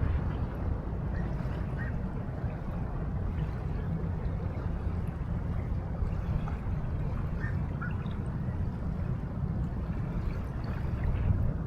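Steady ambient wash of river waves and wind, with a low rumble underneath.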